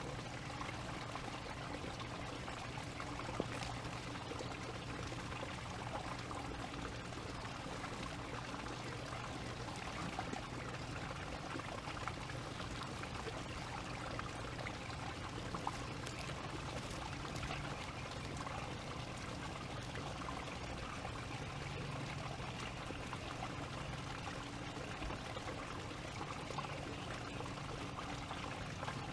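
Steady rushing hiss of outdoor background noise with a faint low hum, broken by a couple of small sharp ticks.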